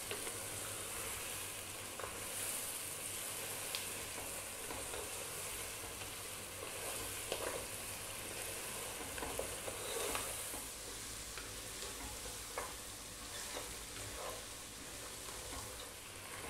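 Lamb pieces and sliced onions sizzling steadily as they fry in a pot, with a wooden spatula stirring and scraping through them now and then.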